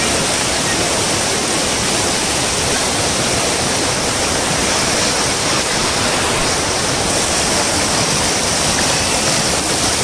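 Fast-flowing monsoon stream rushing and splashing over rocks in a small cascade: a loud, steady rush of water.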